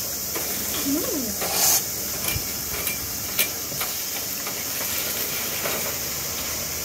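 A steady high-pitched hiss, with a few light clicks and taps.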